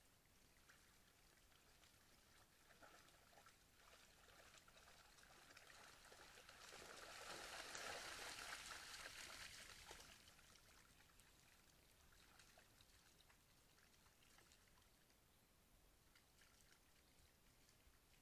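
Faint water splashing and trickling that swells for about three seconds in the middle, over a quiet crackling background.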